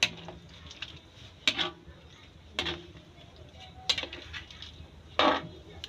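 A ladle knocking and scraping against a metal wok while a tomato-sauce stew is stirred. There are five sharp clinks, roughly one every second and a half.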